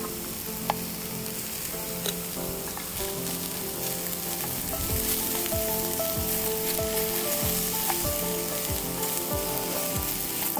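Food sizzling in a frying pan, a steady frying hiss, with background music of held notes over it.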